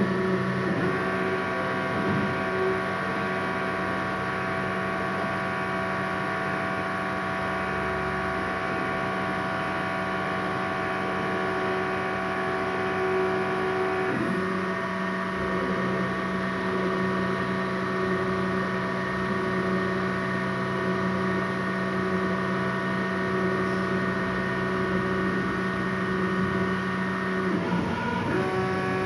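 A CNC machine running: a steady hum and whine made of several held tones from its motors. The tones change about halfway through, and they glide briefly near the end.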